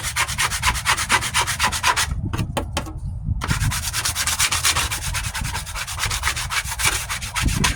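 Hand sanding of hardened Bondo body filler on a truck's sheet-metal wheel arch: quick back-and-forth scraping strokes, about seven a second. They break off briefly around two seconds in, then carry on.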